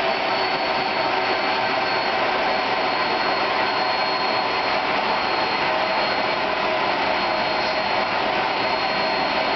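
Bullard CNC vertical turret lathe running steadily in high gear, a loud even mechanical whir with a thin high-pitched whine held throughout.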